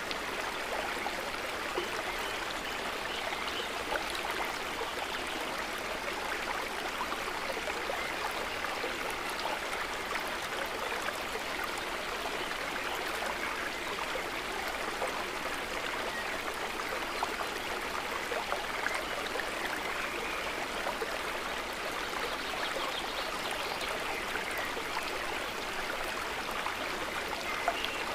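Calm water trickling steadily, a soft, even wash of small gurgles.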